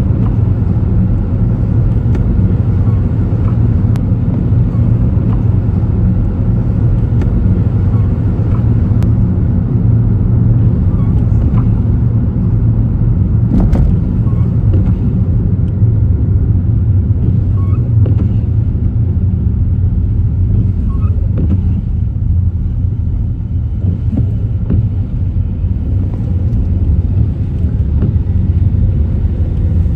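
Car driving along city streets: a steady low rumble of engine and tyres on the road, with a few faint clicks.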